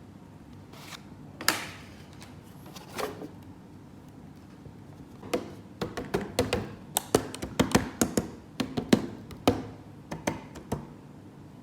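Plastic toy pieces being handled and set down: a sharp click about a second and a half in, another near three seconds, then a quick run of small clicks and taps through the middle and later part.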